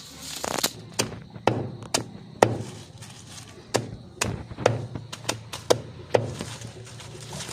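A steady series of sharp knocks, about two a second.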